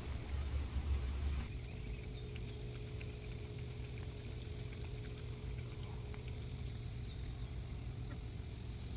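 Dog Mate pet water fountain running: its small electric pump hums steadily as water circulates. A heavier low rumble over the first second and a half stops abruptly.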